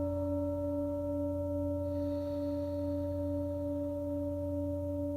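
Tibetan singing bowl, a 'circulation bowl' with a small mound inside its base, ringing in a long, steady sustained tone with a slow wobble.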